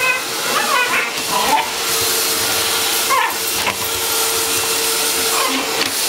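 Vacuum cleaner running steadily, a constant hiss of air with a steady whine, its hose nozzle working over a tile floor.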